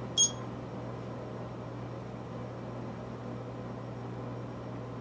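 A single short electronic beep from the oven's control panel as it is set for baking, then a steady low appliance hum.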